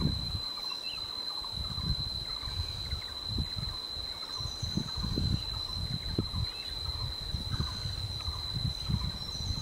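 Wreathed hornbill feeding at its nest hole: a run of short, irregular low clucks. Faint chirps from small birds and a steady high tone sit behind them.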